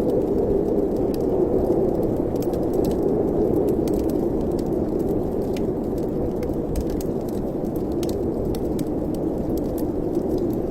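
Steady rushing of wind with a wood fire in a fireplace crackling, its sharp pops scattered irregularly through the windy noise.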